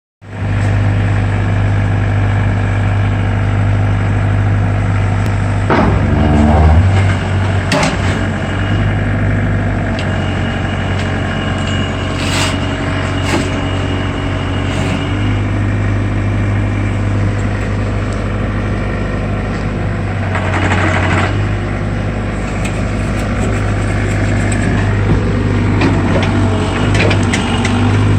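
Caterpillar 305 mini excavator's diesel engine running steadily while the arm, blade and tracks are worked, with several short bursts of hissing, clattering noise over it.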